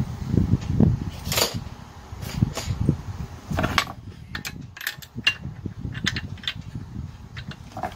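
Metal tool clinks and knocks as a T-handle spark plug wrench is picked up and fitted onto the spark plug of a four-stroke brush cutter engine, over low bumping as the engine is handled. There are scattered sharp clicks, with one louder knock about a second and a half in.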